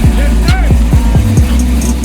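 Hip-hop trap beat: deep 808 bass hits that slide down in pitch several times, with ticking hi-hats and a short pitched glide near the start.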